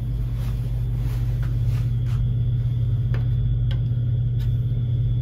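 A steady low mechanical hum, with soft footsteps on carpet showing faintly every half second or so.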